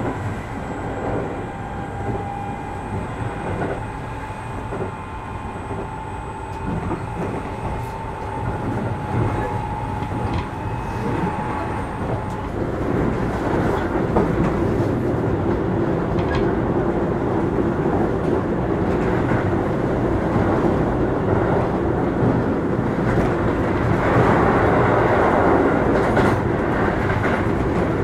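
Onboard running sound of a Keio 8000 series electric train with a Hitachi SiC VVVF inverter. The inverter and traction motors whine on several steady tones that rise slowly in pitch and cut off about twelve seconds in. After that the wheels rumble over the rail joints with clicks, growing louder toward the end.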